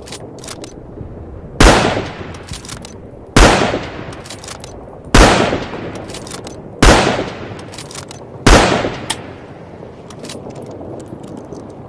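Lee-Enfield bolt-action rifle fired five times in steady succession, about one shot every second and three-quarters, each shot loud and sharp with a decaying echo. Fainter clicks between the shots fit the bolt being worked.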